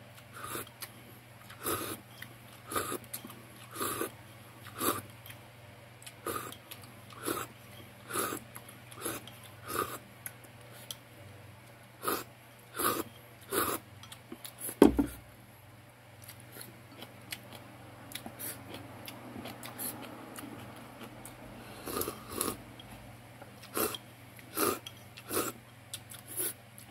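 Chopsticks clicking against a ceramic rice bowl as rice in tea broth is shovelled from the rim into the mouth, about one click a second, with slurping and chewing. One louder knock comes about 15 s in.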